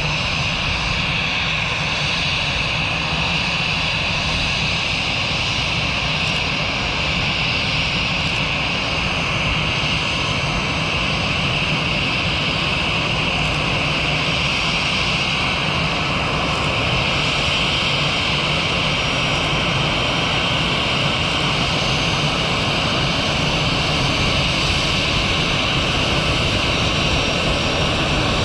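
Aircraft engines running steadily, a rushing noise with a high whine over a low rumble, growing slowly louder.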